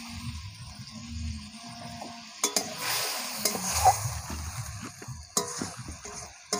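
Spice paste with chopped tomato sizzling in a metal karai while a metal spatula stirs and scrapes through it, knocking sharply against the pan twice: the masala being fried down (kashano).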